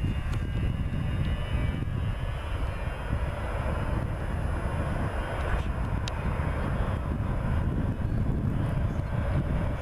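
McDonnell Douglas MD-87 jet airliner at take-off power during its take-off roll: its rear-mounted Pratt & Whitney JT8D turbofans give a steady, distant rumble.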